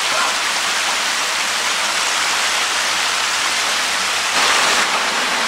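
Small waterfall rushing: a steady, even hiss of falling water, close and loud, swelling slightly near the end.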